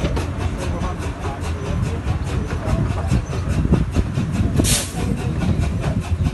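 Miniature-railway steam locomotive hauling its train, heard from a carriage behind: a steady rumble of wheels and carriages with a fast, even rhythm of beats, and a short burst of steam hiss about four and a half seconds in.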